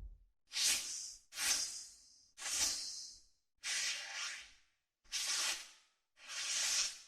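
A string of six short whoosh transition sound effects, one after another with brief gaps. Each is a hissy rush under a second long that swells and fades, and a couple trail a faint high whistle.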